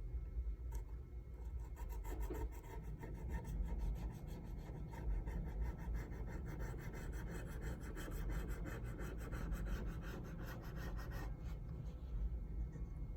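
Old adhesive being scraped and rubbed off an iPhone 15's frame after softening with alcohol: rapid back-and-forth scraping strokes, several a second, that start about a second and a half in and stop about eleven seconds in.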